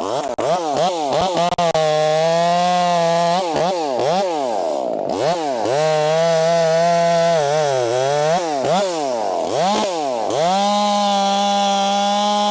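Two-stroke chainsaw cutting into maple wood, revved up and down in quick dips and held at full throttle through three stretches of cutting.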